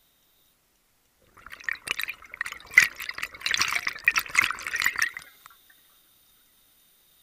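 Scuba diver exhaling through the regulator underwater: one breath's worth of bubbles gurgling and crackling out of the exhaust for about four seconds, starting a second and a half in.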